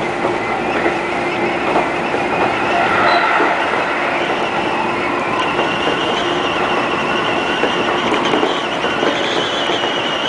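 Seibu 20000-series electric train running along the track, heard from inside the front car: steady rolling noise from wheels and rails, with a high whine that joins about halfway through.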